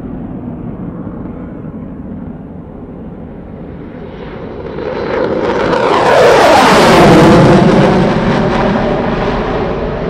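F-16 fighter jet flying past: a jet rumble that swells about five seconds in to a loud pass, its pitch falling as it goes by, then slowly fading as it climbs away.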